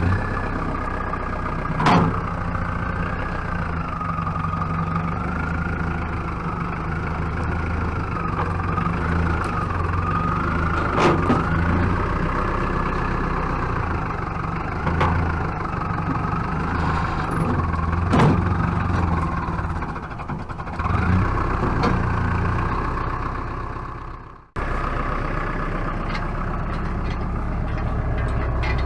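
Pickup truck engine running at low speed as the truck is backed up to a trailer, with a wavering whine over the engine and a few sharp clicks. The sound cuts out abruptly about three-quarters of the way through, then resumes.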